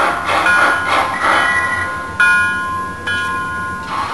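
MTH Proto-Sound 3.0 sound system in an HO-scale Erie 2-8-8-8-2 Triplex steam locomotive: steam chuffing about three times a second with a bell ringing, then two long whistle blasts starting about two seconds in.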